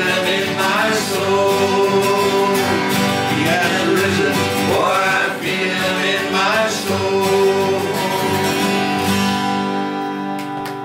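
Four acoustic guitars strummed together under men's voices singing a country gospel song in harmony, with long held notes. Near the end the singing drops away and the music winds down to a close.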